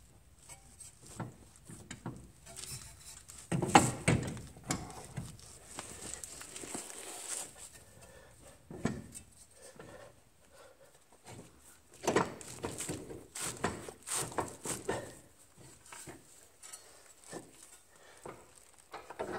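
Intermittent metal knocks and clinks of a car's front suspension being worked on by hand, as the new steering knuckle is manoeuvred onto the strut to line up its bolt holes. There is a louder clank about four seconds in and a run of knocks a little past the middle.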